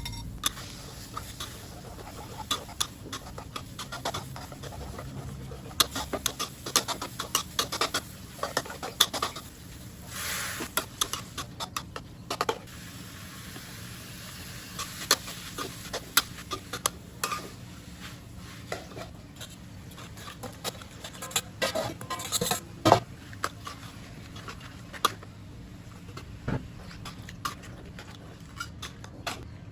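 Metal utensils clinking, knocking and scraping irregularly against cookware, as in stirring and serving a stir-fry, with a couple of brief hissing stretches.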